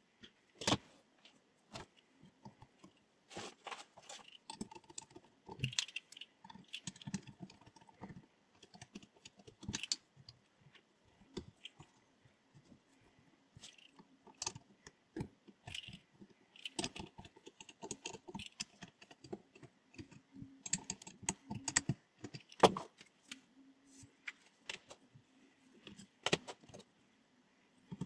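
Small metal parts clinking and clicking as they are handled, in irregular knocks and short rattles.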